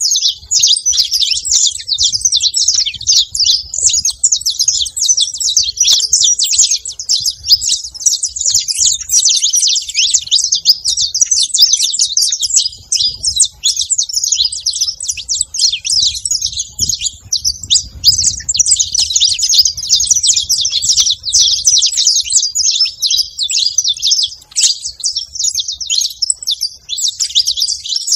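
A flock of saffron finches chirping constantly while feeding, many short high calls overlapping with no break.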